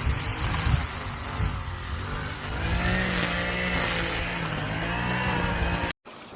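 Motor vehicle noise: a steady rushing with an engine or motor hum that comes in about halfway and wavers slightly in pitch, cut off abruptly near the end.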